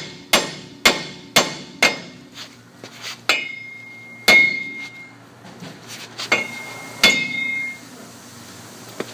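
Hammer blows on a steel wheel stud in a 1999 Silverado 1500's front hub, driving the old stud out: about two strikes a second for the first two seconds, then four slower blows, several leaving a high metallic ring.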